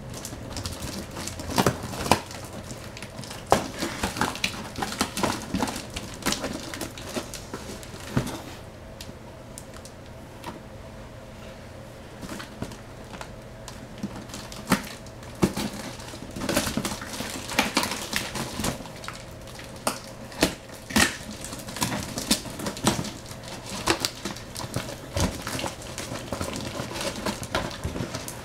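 Duct-taped, plastic-wrapped packaging being cut with a Benchmade knife and torn open: irregular crackling, rustling and sharp clicks of tape and plastic. The sound thins out for a few seconds about a third of the way in.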